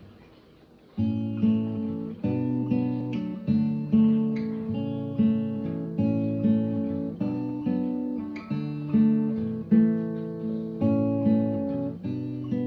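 Acoustic guitar playing chords in a steady rhythm, starting about a second in after near silence.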